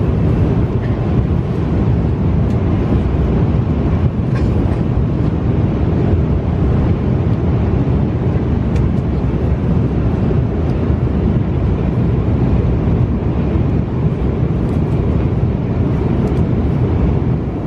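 Steady, loud cabin noise of an Airbus A330-300 in flight: a low rumble of engines and airflow heard from an economy seat.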